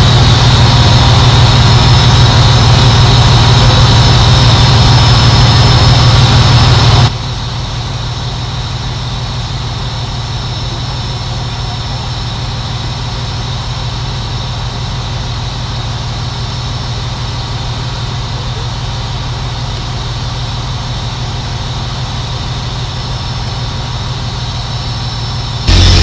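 Semi-truck diesel engine idling, a steady low rumble. About seven seconds in it drops suddenly to a quieter, duller steady hum, which jumps back to full loudness at the very end.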